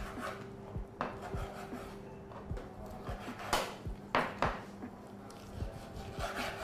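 Kitchen utensils and cookware handled on a worktop: a few scattered knocks and clinks of pots, dishes and cutlery, over a steady low hum.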